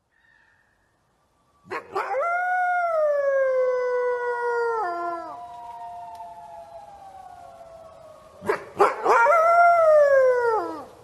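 Wolf howling twice: each howl starts abruptly, rises briefly and then slides slowly down in pitch. The first is long and fades out gradually; the second begins about eight and a half seconds in and drops off just before the end.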